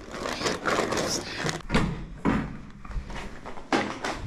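Rustling and knocking handling noise as an insulated delivery bag is shifted about, then a building door being pushed open.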